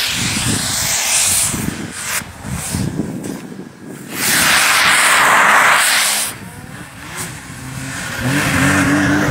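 Arctic Cat King Cat four-stroke turbo snowmobile engine revving up and down as the sled carves through deep powder. A loud rushing hiss lasts about two seconds in the middle, and the engine revs climb strongly near the end.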